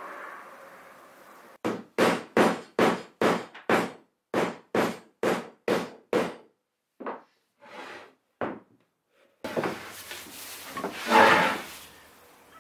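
Rubber mallet knocking an upright Baltic birch plywood panel down into the slotted joint of its base panel: about eleven firm, evenly spaced blows, then three softer taps. Near the end, a rubbing, scraping noise as glue is spread on the plywood.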